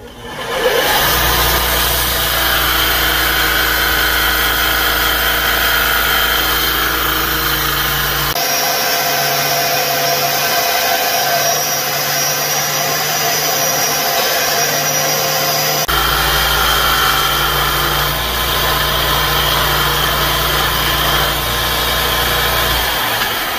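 Electric belt grinder running with an abrasive belt grinding a small steel piece: a steady motor hum under the hiss of the belt on the metal. It starts up about a second in, its tone changes abruptly about eight seconds in and again about sixteen seconds in, and it begins to fade near the end.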